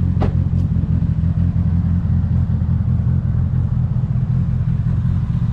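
A car engine idling steadily with a low, even drone, and one short click just after the start.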